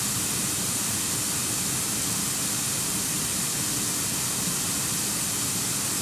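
White noise played by an Apple HomePod from its Ambient Sounds feature: a steady, even hiss that does not change.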